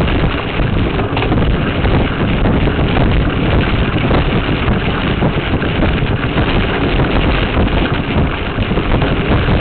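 Wind buffeting and trail vibration on the microphone of a Veho Muvi action camera rear-mounted on a moving mountain bike: a loud, steady rumbling noise.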